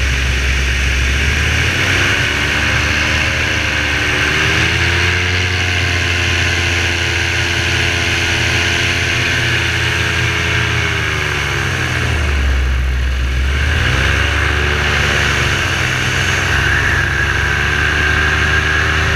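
Parajet V3 paramotor's two-stroke engine and propeller running in flight under a hard stress-test workout. The pitch climbs as the throttle opens about two seconds in, drops away briefly around twelve seconds, then rises again.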